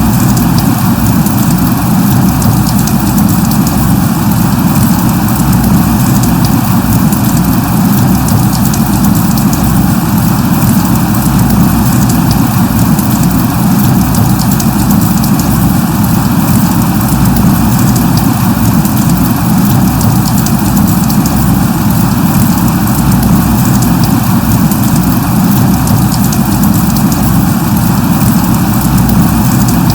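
Steady light rain falling: an even, dense hiss with a fine patter of drops and a low rumble underneath.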